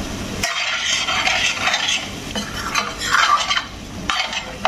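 A spoon stirring and scraping chicken karahi around a stainless steel frying pan, in irregular strokes through the thick gravy, with a sharp click of metal on metal about half a second in and another at the very end.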